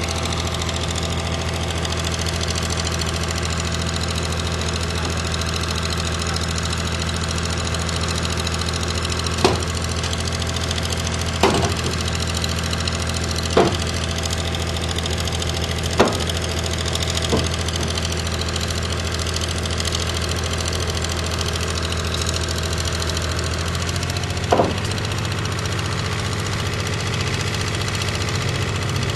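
A heavy vehicle engine running steadily at an even pitch during the winching of a steam locomotive onto a low-loader trailer, with six sharp knocks at irregular intervals through the middle stretch.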